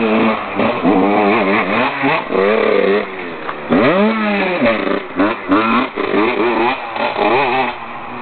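2009 Husqvarna WR 125's single-cylinder two-stroke engine being revved during warm-up in a string of quick throttle blips, the pitch jumping up and falling back each time, settling back toward idle near the end.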